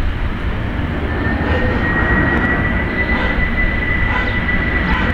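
Boeing 747's four jet engines passing low overhead: a steady, loud rumble that grows slowly louder, with a high engine whine coming in about a second in.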